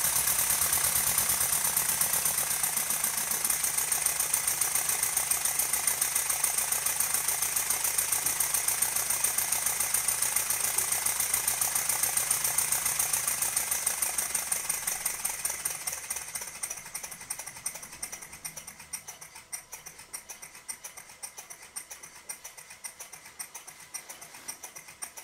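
Cotswold Heritage Gryphon twin-cylinder model steam engine running on compressed air, with a fast, even beat of exhaust puffs and mechanical knocking, held under load by a Scotch-Brite pad pressed on its flywheel. From about 14 seconds in, the beat grows quieter and slows as the engine runs down.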